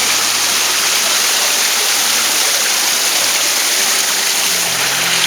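Loud, steady rush of river water running over rocks.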